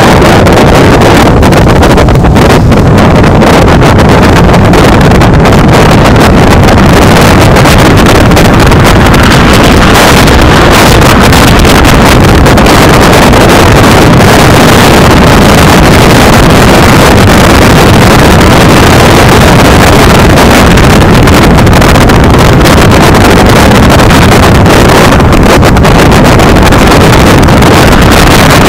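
Wind buffeting the microphone on the open bed of a moving flatbed truck, loud and unbroken, over the truck's engine and road noise.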